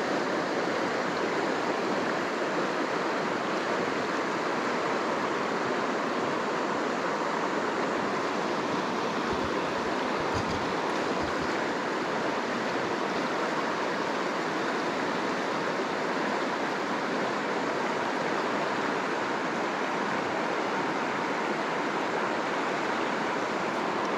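Steady rush of creek water running over riffles and small rapids.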